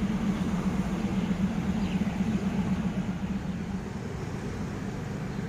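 Diesel railcar engine idling, a steady low hum that eases slightly in level over the second half.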